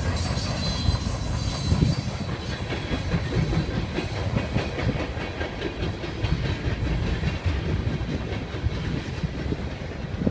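Freight train cars rolling past, a steady low rumble with the wheels clacking over rail joints.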